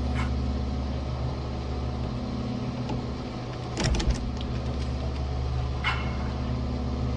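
Shredder's motor running with a steady hum while its blades crunch a rubber toy figure, with sharp cracks a moment in, a loud cluster of snaps about four seconds in, and another crack near six seconds.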